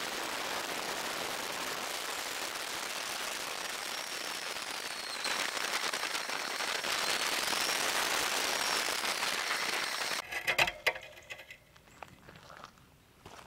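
Kick scooter rolling along a path: a steady rushing of wheels and wind, louder after about five seconds, that stops abruptly about ten seconds in with a few knocks, followed by quieter scattered clicks and scuffs.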